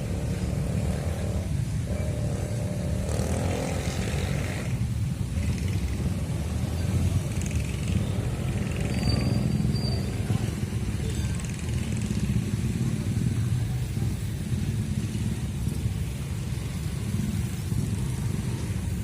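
Long Babaranjang coal freight train rumbling past, a steady low rumble that keeps on without a break.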